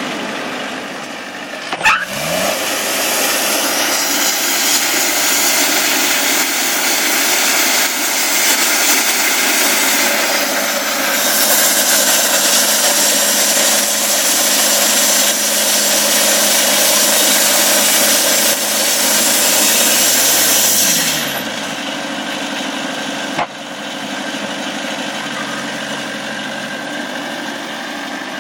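A portable sawmill's engine runs steadily. About two seconds in, the blade engages with a clunk and spins up, and a loud, hissing saw cut follows. Just after twenty seconds the blade winds down, leaving the engine running quieter.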